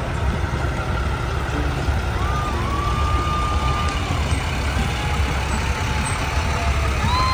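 Heavy six-wheel military wrecker truck's diesel engine rumbling as it drives slowly past. Over it, two long steady whistle-like tones sound one after the other in the middle, and a third begins near the end.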